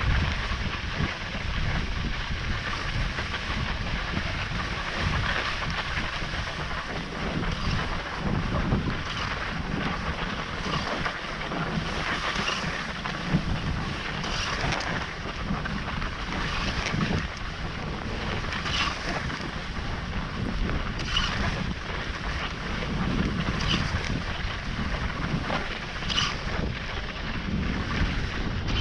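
Wind buffeting the microphone of a moving skier, over the steady hiss of skis gliding on groomed snow, with brief louder swishes every couple of seconds.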